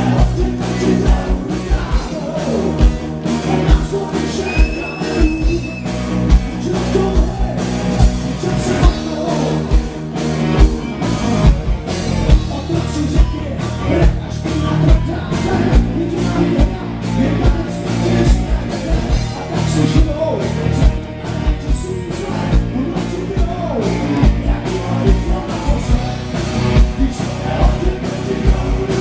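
Live rock band playing with a steady drum beat and sung vocals. It is recorded from the stage, picking up only the monitor speakers, so the mix sounds rough.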